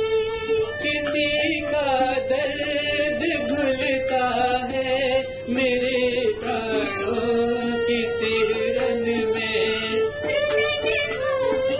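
Music from a Hindi film song duet: a melody with wavering, vibrato-like lines over a steady held note, without pause.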